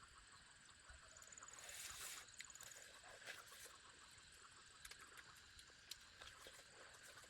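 Near silence: faint outdoor rural ambience with a steady high-pitched insect drone and scattered small clicks, and a soft hiss swelling briefly about two seconds in.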